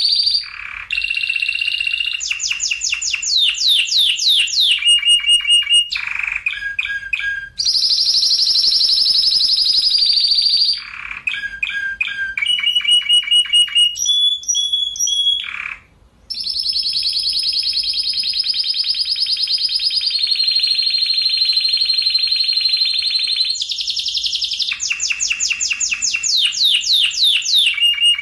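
Spanish Timbrado canary singing a continuous song of changing phrases: long, tight rolling trills alternate with rapid runs of repeated notes and quick downward-sweeping notes. It breaks off briefly about two-thirds of the way through.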